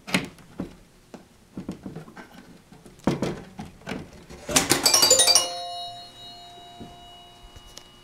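Stern Stars pinball machine clicking several times as its switches are worked, then a quick burst of bell-like tones about halfway through that ring out and fade slowly.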